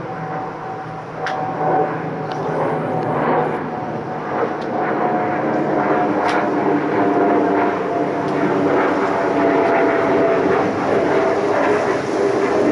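Pilatus PC-12's single turboprop engine: a steady whine that slowly falls in pitch while the overall sound grows louder as the aircraft comes closer.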